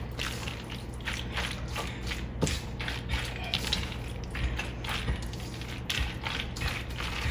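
Macaroni salad with ham and mayonnaise being stirred with a spatula in a stainless steel bowl: irregular wet squelching and scraping strokes, with short clicks of the utensil against the bowl.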